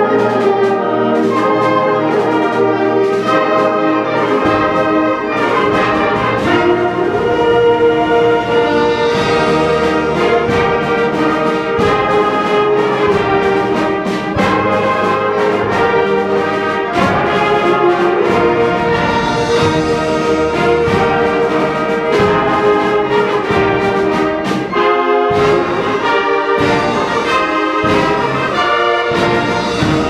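A school concert band playing loud, full-ensemble wind music with prominent brass. Low bass enters about four seconds in, and a run of heavy low accents comes near the end.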